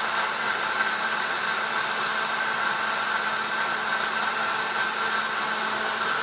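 Countertop blender running steadily and loud on its liquefy setting, puréeing cashews and water into a thick sauce: an even motor whine with a steady hum underneath.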